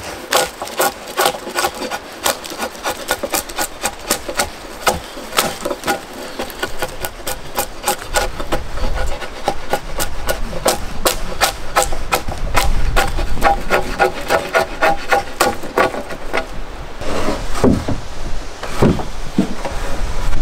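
Drawknife shaving a wooden board: a fast, even run of rasping strokes as curls of wood peel off. The strokes stop near the end.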